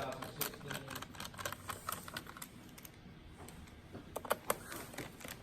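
Irregular key taps on a laptop keyboard, with two sharper clicks about four seconds in.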